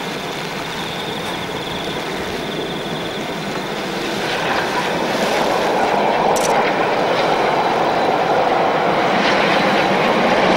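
NZR KA class steam locomotive KA 945 working hard as it hauls its train along the line, with exhaust and the noise of wheels on rail. It gets louder about four seconds in as the train draws closer.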